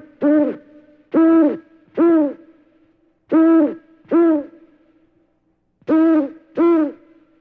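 Owl hooting: double hoots, each hoot rising slightly and then falling in pitch, with a pair about every two seconds.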